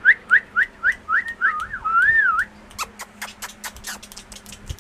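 A person whistling short rising chirps, several a second, then a wavering whistle, calling a Pomeranian puppy. A run of quick sharp clicks follows through the second half.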